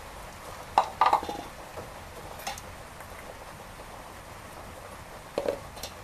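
A few sharp clinks and knocks on a stainless steel bowl as ginger-garlic paste is added over raw meat and sliced onions. There is a quick cluster about a second in, a single one near the middle, and two more near the end.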